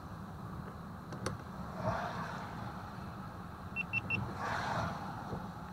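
Windshield wipers swishing across a rain-wet windshield about every two and a half seconds, heard inside a car idling with a low engine hum. A sharp click comes about a second in, and three quick high beeps about four seconds in.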